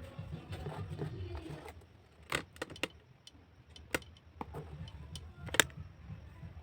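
A low rumble that fades out, then a few separate sharp clicks and knocks, the loudest near the end.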